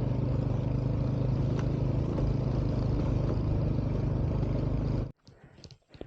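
A vehicle engine running steadily under way, with road and wind noise, cut off abruptly about five seconds in; faint scattered clicks follow.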